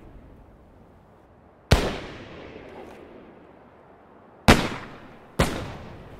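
Three revolver gunshots, each a sharp crack trailing off in a long echo: one a little under two seconds in, then two close together, under a second apart, near the end.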